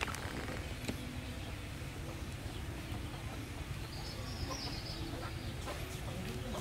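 Chickens clucking and small birds chirping over a low steady rumble, with a few light clicks.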